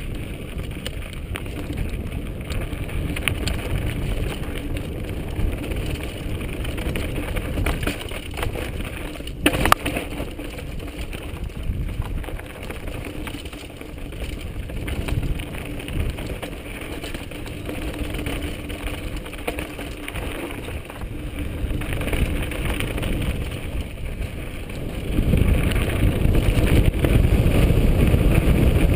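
Mountain bike descending a rough, rocky trail at speed, heard from a camera on the rider: wind rushing over the microphone, with tyres rolling over loose rock and the bike rattling. There is one sharp knock about nine seconds in, and the rush grows louder for the last few seconds.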